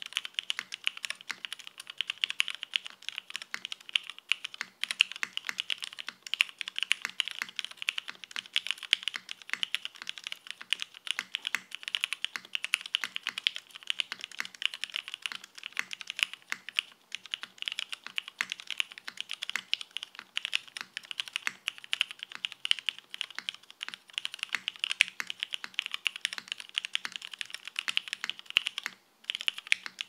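Fast, continuous typing on a TGR Jane V2 mechanical keyboard built with lubed vintage Cherry MX Black linear switches on a carbon-fibre plate with no case foam, under CRP R4 keycaps. The keystrokes come thick and steady, with a brief pause about a second before the end.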